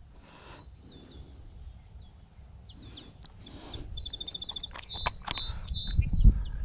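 Songbirds calling: a few short, high, down-slurred notes, then from about two-thirds in a fast run of repeated high notes. Over the second half come sharp clicks from a clear plastic tackle box being handled and opened, with low thumps of handling noise, loudest near the end.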